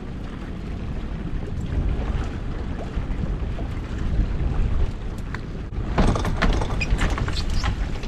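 Wind rumbling on the microphone while a pot rope is hauled in by hand over the side of a small boat. About six seconds in, a lobster pot comes up out of the water with splashing and knocks against the hull.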